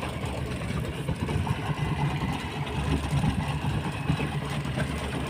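A boat's engine running steadily at low revs, a constant low hum.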